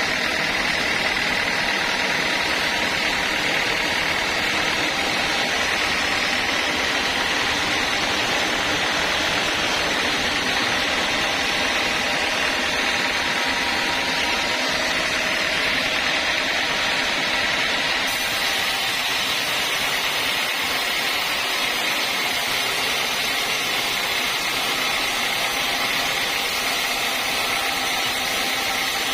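Homemade sawmill running steadily: a constant mechanical drone with a thin, steady high whine on top.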